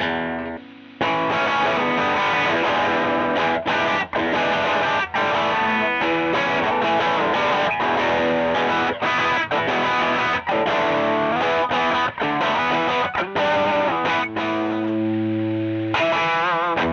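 Distorted electric guitar played through a Joyo JF-22 Oxford Sound amp-sim overdrive pedal. It plays a riff of chopped chords with short stops, then lets one chord ring for about two seconds before a new riff starts near the end.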